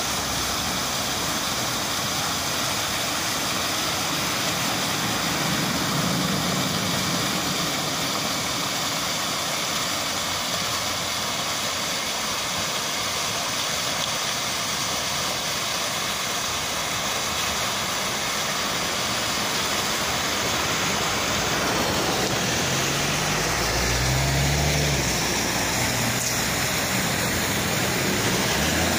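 Water from a tiered stone fountain spilling over its rims and splashing into the basin, a steady rush. About twenty-two seconds in it gives way to street sound, with a vehicle's engine passing.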